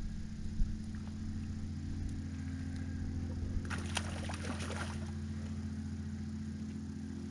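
A steady low engine-like hum throughout, with about a second of crackling, splashing water a little past the middle.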